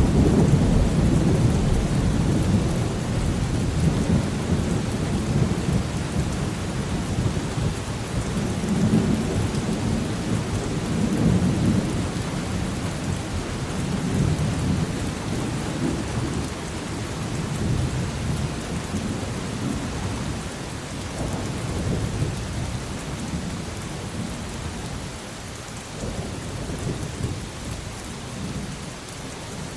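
Steady rain falling through a long rolling rumble of thunder that swells and fades several times and slowly dies away toward the end.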